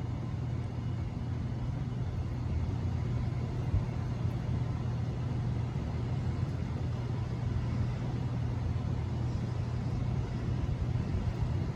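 42-inch ceiling fan running steadily on high, its only speed since conversion to a one-speed pull-chain switch, with a steady low motor hum.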